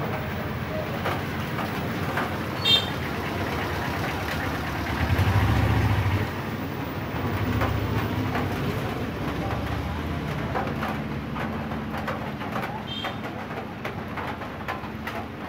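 Steady background noise with a low rumble swelling for about a second around five seconds in, two short high chirps, and faint scattered clicks.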